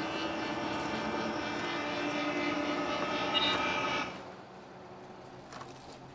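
Ride noise inside a bus: a steady engine hum with several held tones, dropping sharply in level about four seconds in and going on more quietly.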